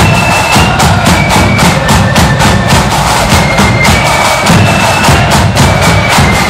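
Marching flute band playing a tune: loud, high flute melody notes over a steady beat of snare and bass drums.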